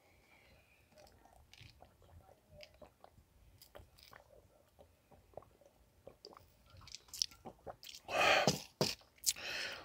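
Close-up mouth sounds of drinking iced green tea from a large glass mug: small clicks and swallows, then two louder breathy exhales near the end as the mug comes down.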